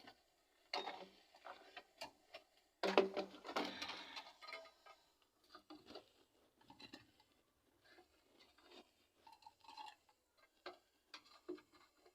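Irregular small knocks, clicks and scrapes of objects being handled, with a louder rustling scrape about three seconds in.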